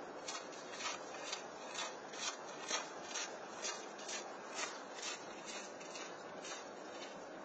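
Footsteps crunching on a thin layer of snow on a sidewalk at a walking pace, about two steps a second, over a steady background hiss.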